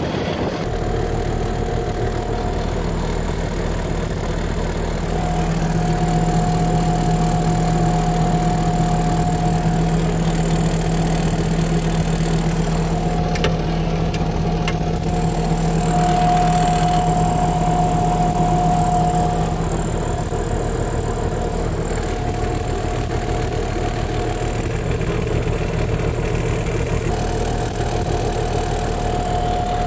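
Diesel engine of a Bobcat S650 skid steer loader running steadily with a constant low hum. It runs a little louder through the middle stretch, then settles back.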